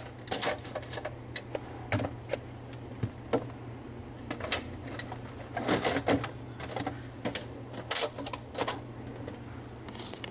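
Plastic food containers and clamshell boxes clicking and clattering in irregular knocks as they are shifted around on refrigerator shelves, over a steady low hum.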